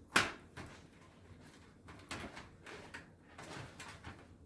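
A sharp metallic click about a quarter second in, then quieter taps and scrapes: small screws and the hard drive being handled against the DVR's metal case as the screws are started in their holes.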